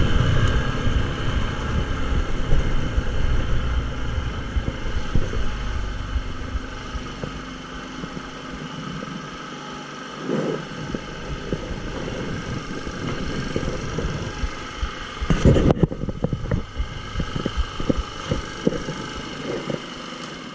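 Tao Tao 200cc ATV engine after revving, running at a low throbbing idle that fades over the first several seconds, with scattered knocks and a louder clatter about fifteen seconds in.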